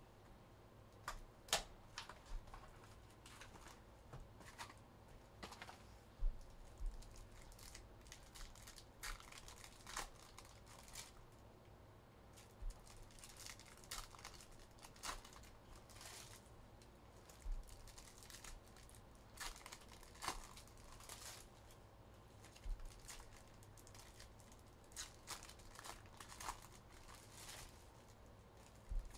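Faint crinkling and tearing of trading-card pack wrappers and box wrapping, with scattered small clicks and taps at irregular intervals.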